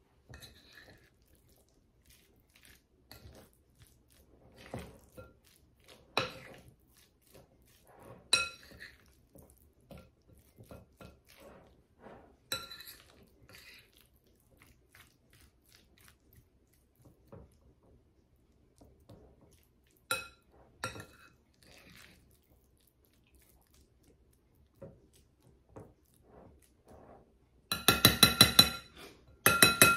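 Metal spoon scraping and clinking against a glass mixing bowl while stirring chicken salad, in scattered, uneven knocks, some ringing. Near the end comes a quick, louder run of ringing clinks against the glass.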